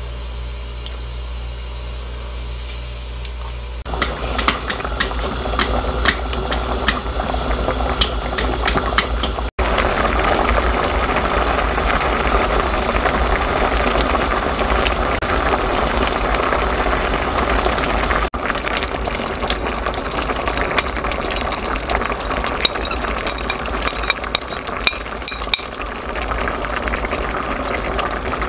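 Spicy braising liquid for hairtail simmering in a stainless steel pan: steady bubbling with many small pops and crackles. The first few seconds hold only a steady low hum.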